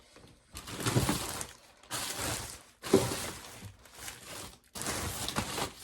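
Someone rummaging through loose objects, rustling and clattering in four noisy bursts of about a second each, with a sharp knock about three seconds in.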